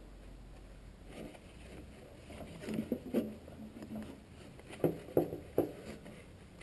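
Knocks and clatter of drill press belts and step pulleys being shifted by hand to change speed, ending in three sharp knocks in quick succession.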